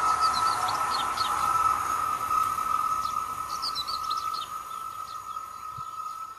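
Rails singing just after a train has passed: a steady high-pitched tone that slowly fades. This is the high-frequency wheel–rail noise that damping material at the rails and sleepers is meant to attenuate. Birds chirp over it in three short spells.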